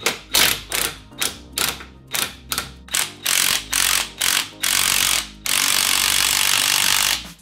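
DeWalt cordless impact wrench hammering on the strut nuts in short bursts, about three a second, then running unbroken for nearly two seconds near the end. Background music plays underneath.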